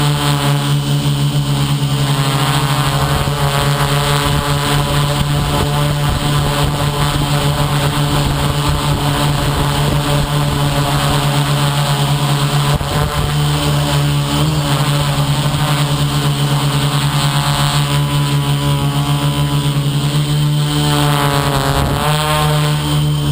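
Electric motors and propellers of an FPV model aircraft in flight, giving a loud, steady whine. Near the end the pitch dips briefly and comes back.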